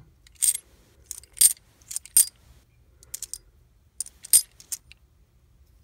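Silver Walking Liberty half dollars clinking against each other as they are handled and set down one by one: a loose series of sharp, bright metallic clicks, about nine in all, some in quick pairs.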